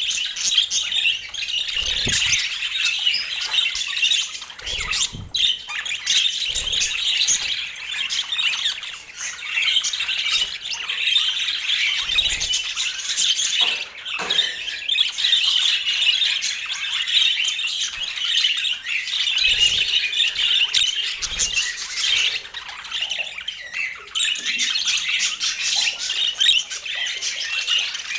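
A group of budgerigars chattering: continuous warbling, chirps and squawks.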